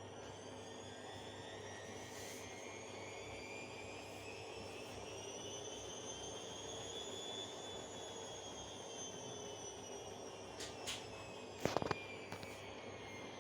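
Bosch washing machine motor and drum whining during the spin cycle, the pitch rising slowly and then falling again as the drum speed changes. A short knock about twelve seconds in.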